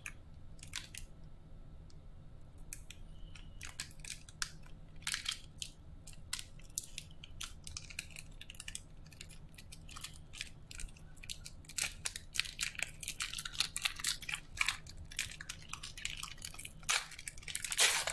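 Plastic wrapper of a trading-card pack crinkling and crackling as it is handled, in irregular bursts that grow busier near the end.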